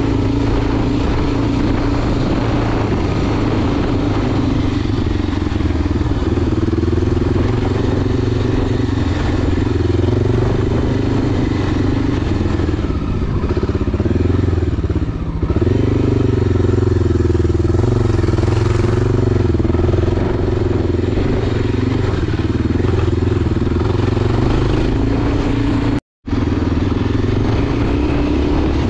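Enduro motorcycle engine running steadily while riding, its pitch rising and falling a little, with a brief dropout to silence near the end.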